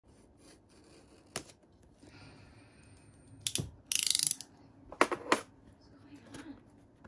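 Snap-off utility knife's blade slider ratcheting as the blade is run back into the handle: a quick string of rapid clicks about four seconds in. Around it are single clicks and knocks and some faint scraping from the knife and the cardboard carton being cut and handled.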